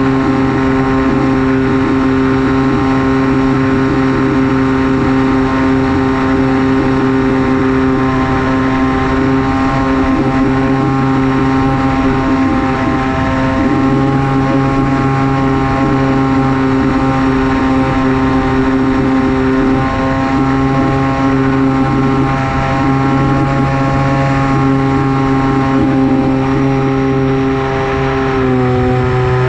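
Electric motor and propeller of an FPV flying wing droning at a steady cruise pitch under a rush of noise. The pitch dips briefly near the end as the throttle eases, then recovers.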